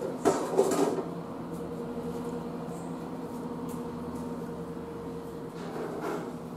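Class 170 Turbostar diesel multiple unit pulling away, its underfloor diesel engines running with a steady hum that slowly fades. A short clatter of sharp knocks comes in the first second.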